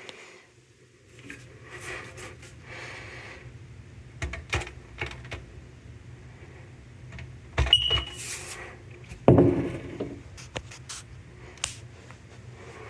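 Clicks and knocks of handling at a ceiling smoke alarm, with one short high chirp from the alarm just before eight seconds and a dull thump about a second later.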